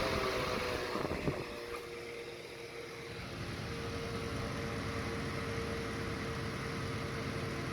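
Small homemade fan driven by a humidifier's motor, running and blowing air. There is a click about a second in, and the sound dips and settles as the fan drops from high to medium speed, then runs steady with a faint hum.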